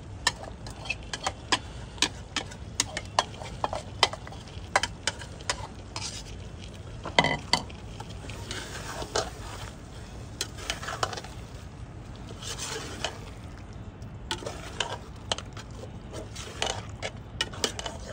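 A spoon stirring whole chicken in a pot of curd and masala, knocking and scraping against the pot a few times a second, irregularly, with the masala sizzling underneath.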